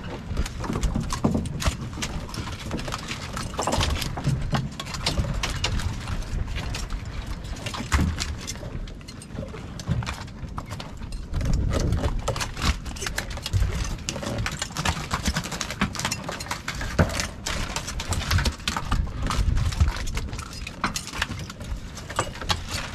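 Freshly caught black rockfish flopping and slapping on a boat deck in quick, irregular knocks as they are unhooked.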